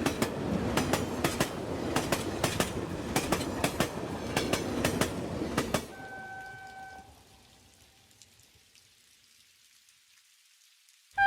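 Train rolling past with wheels clicking over rail joints in an uneven clickety-clack, cut off abruptly about halfway through. A short pitched tone then fades out, leaving near silence.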